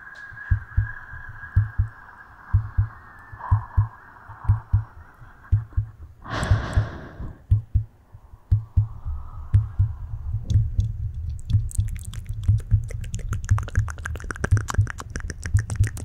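Close-microphone ASMR sounds: soft, irregular low thumps throughout, a breathy whoosh lasting about a second around six seconds in, and rapid fine clicks and crackles from about ten seconds in.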